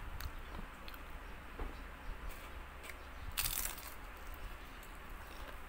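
Crunching and chewing on a crispy turon (fried banana spring roll), with short small crunches and one loud, longer crunch about three and a half seconds in.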